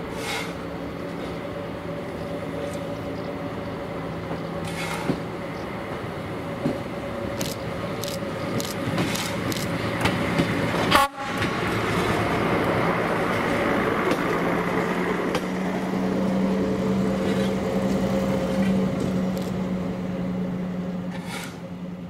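ČSD class 810 diesel railbus running past at low speed with a steady diesel drone that grows louder after it passes, and a few sharp clicks near the middle. The sound breaks off for a moment about halfway.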